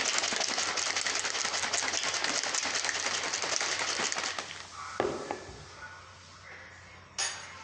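Shaker cup of milk and protein shake mix being shaken hard, a fast steady rattle that stops about four seconds in. Two sharp knocks follow, one about a second later and one near the end.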